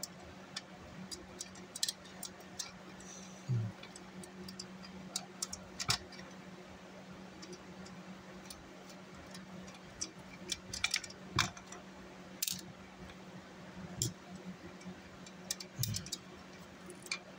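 Scattered small clicks and ticks of a screwdriver turning screws and of small metal parts being handled while the fan is removed from a car amplifier's open chassis, over a faint steady hum.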